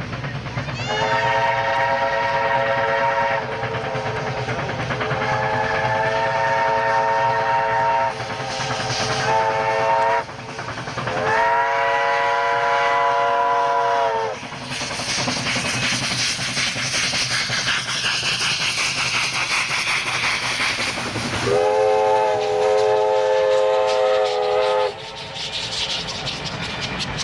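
Steam locomotive's chime whistle blowing the grade-crossing signal, long, long, short, long, with several tones sounding together. The engine then passes close in a rush of exhausting steam and running-gear noise, and one more long whistle blast sounds as the coaches roll by on the rails.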